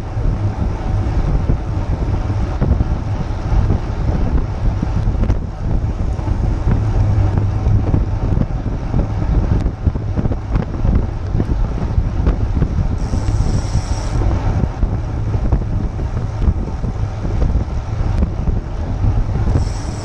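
Wind buffeting the microphone of a bike-mounted GoPro on a moving road bicycle: a loud, steady low rumble. A high whine comes in for about a second around two-thirds of the way through, and again near the end.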